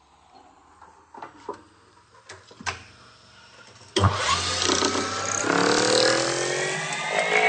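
A few light clicks and knocks, then about four seconds in a metal lathe is switched on with a sudden loud start and its spindle speeds up, a whine of several tones rising steadily in pitch.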